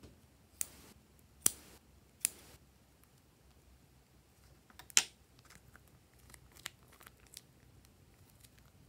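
Scissors snipping through a plastic slime bag, three sharp cuts in the first two and a half seconds. About five seconds in there is one loud sharp click, followed by a few faint ticks and crinkles of the bag.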